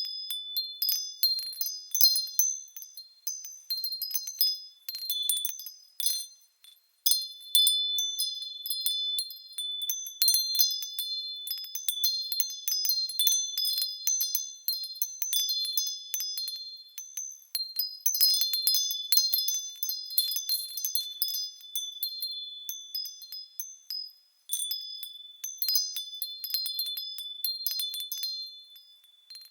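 High-pitched wind chimes tinkling in irregular, overlapping strikes, each note ringing on briefly. There is a short lull about six seconds in and another toward the end.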